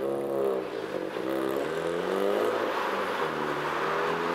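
An engine drone whose pitch sags and rises several times, over a hiss of escaping steam from the LNER A4 steam locomotive that grows louder near the end.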